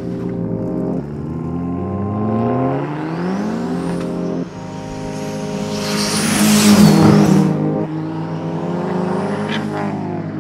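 Turbocharged classic Mini accelerating hard, its engine pitch climbing through the gears, with a loud close pass about six to seven seconds in, then climbing again through another gear.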